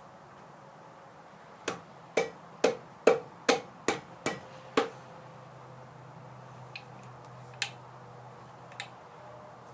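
A steel fitting being knocked onto a pipe: eight sharp metallic taps, about two a second, each with a short ring, followed by a few lighter clicks.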